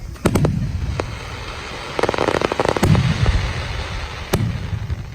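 Aerial fireworks shells bursting: several sharp bangs, each followed by a deep boom, with a dense crackling between them in the middle.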